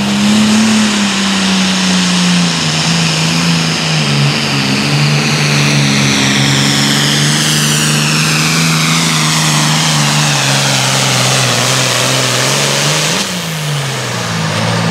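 John Deere 4430 Super Farm pulling tractor's turbocharged diesel running flat out under the load of the sled. The engine note and a high turbo whistle fall slowly as the weight bogs it down. About 13 seconds in, the throttle comes off and the sound drops away at the end of the pull.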